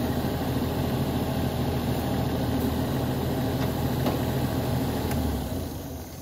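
Mini excavator's diesel engine running steadily at idle, then shut off about five seconds in, the sound dying away over the last second.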